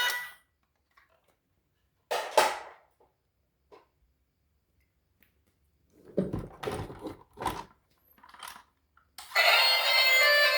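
Hard plastic toys and packaging being handled: a couple of sharp knocks, then a run of clattering knocks with quiet gaps between. Background music comes back in near the end.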